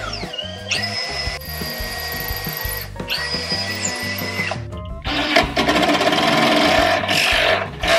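Makita cordless drill boring pilot holes into a wooden cabinet face frame: two steady whining runs of about two seconds each, then a louder, rougher run in the second half. Background music plays underneath.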